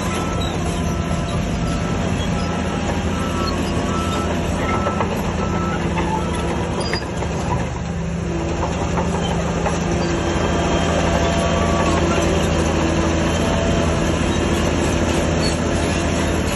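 Heavy diesel earthmoving machinery running steadily, dipping briefly about halfway through and growing a little louder afterwards.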